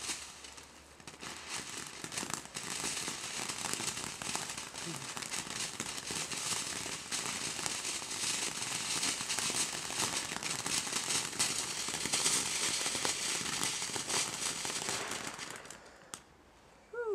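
Firework crackling continuously for about fifteen seconds, a dense stream of small crackles, then dying away near the end.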